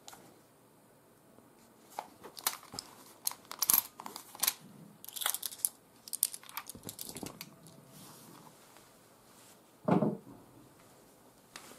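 Sharp clicks and light metallic rattles as a Dan Wesson airsoft revolver's cylinder is swung out and its brass shells are pulled from the chambers and put down. A single duller, louder thump comes near the end.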